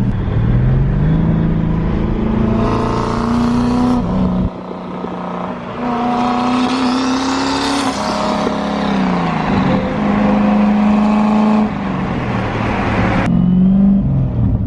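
Turbocharged Ford Crown Victoria 4.6-litre V8 accelerating hard, its pitch climbing in each gear and dropping back at the upshifts, several times over.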